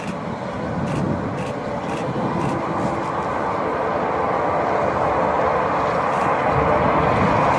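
Antonov An-225 Mriya's six Progress D-18T turbofans at takeoff thrust: a continuous heavy jet noise with a held tone, growing steadily louder as the aircraft lifts off and climbs toward the listener.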